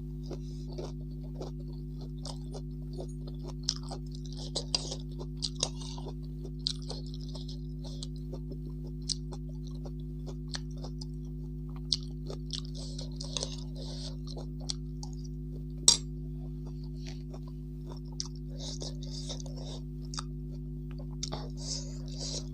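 Close-up mouth sounds of a person chewing rice, with short sharp clicks of a metal spoon against a plate; the sharpest clink comes about 16 seconds in. A steady low electrical hum runs underneath.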